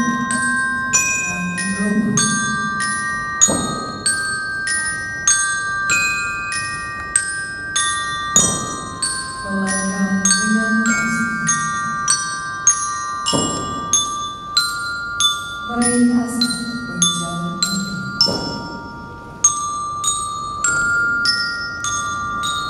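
Slow ceremonial music led by a glockenspiel playing a ringing melody of struck notes, with lower tones underneath and a heavy beat about every five seconds.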